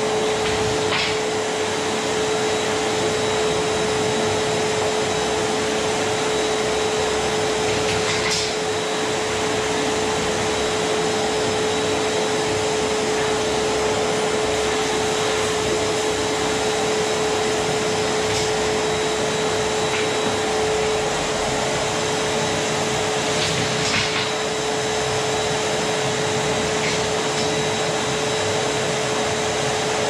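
Rowenta drum vacuum cleaner running steadily, its motor giving a constant whine under the rush of air as the floor nozzle is worked over a wooden floor. A few light knocks come here and there.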